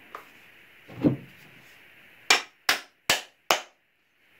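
Hammer tapping a walnut wedge into the slot cut in the top of a new walnut hammer handle: a single duller knock about a second in, then four sharp, evenly spaced taps in quick succession.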